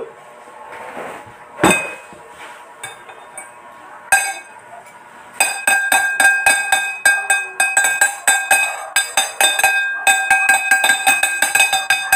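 Metal spoon and fork clinking against a bowl. There are a few scattered clinks at first, then from about five seconds in a rapid, steady run of about five ringing clinks a second.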